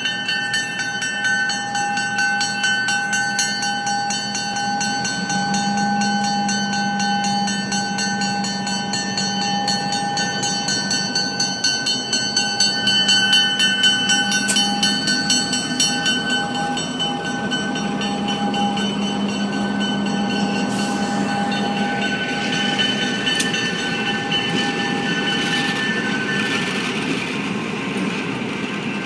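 Freight train rolling past, a continuous rumble with a steady high-pitched squeal of several tones and scattered clicks from the wheels; the squeal fades out near the end.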